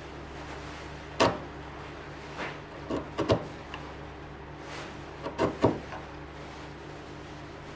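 Steel bench chisel cutting into oak: a sharp crack about a second in, then two short clusters of crunching cuts as the edge pares the wood fibres.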